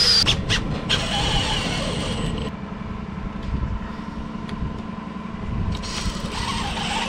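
Cordless drill boring out old screw holes in wooden hull planking, its whine wavering with the load over a steady low rumble.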